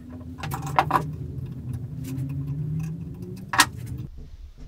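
Bench vise being worked by its sliding T-bar handle: sharp metal clinks as the bar slides and knocks against its end stops, with the loudest strikes about a second in and near the end, over a steady low hum.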